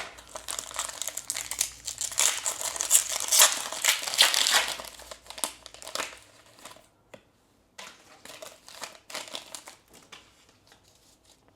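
Foil Pokémon booster pack wrapper crinkling and tearing as it is opened, with dense crackling for about the first seven seconds and then a few lighter crinkles.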